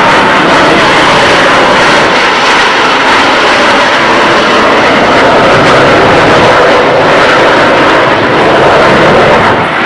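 Four F/A-18 Hornet fighter jets flying past in close formation, their jet engines making a loud, steady rushing noise.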